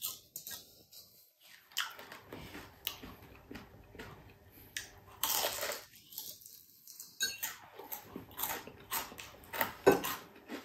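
Crispy deep-fried boneless chicken-feet chicharon being bitten and chewed close to the microphone: irregular crunches, with a longer run of crunching about five seconds in and a sharp snap near the end.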